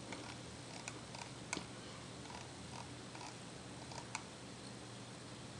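Faint, scattered clicks of a computer mouse as a web page is scrolled, about eight of them at uneven intervals, over a low steady hum.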